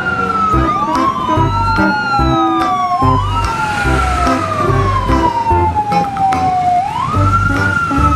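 A fire-truck siren wailing, its pitch sweeping up quickly and sliding slowly back down, about three times over a few seconds, with backing music underneath.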